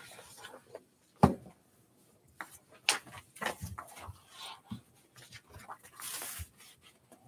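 Small handling noises around a conference table: a sharp knock about a second in, then scattered light taps and clicks, and a brief rustle just after six seconds.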